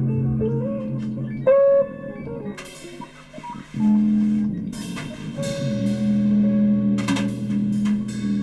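Improvised instrumental music from a small live band, with plucked strings and drums. A loud held note sounds about a second and a half in, the playing thins out briefly, then low sustained notes return under a wash of cymbals.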